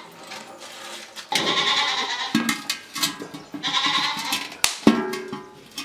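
Two drawn-out wavering animal calls, the first about a second in and the second about midway, followed by two sharp knocks.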